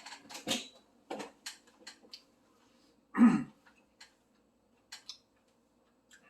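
Close-up eating sounds: wet mouth clicks and chewing, with one louder throat noise about three seconds in. A steady electrical hum from an induction cooktop runs underneath.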